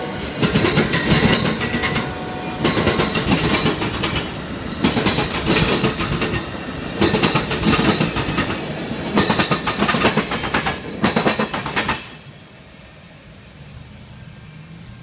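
Amtrak passenger train cars rolling past close by, the wheels clattering over the rail joints in loud bursts about every two seconds as each set of trucks goes by. About twelve seconds in the clatter stops suddenly as the last car clears, leaving a faint rumble of the train moving away.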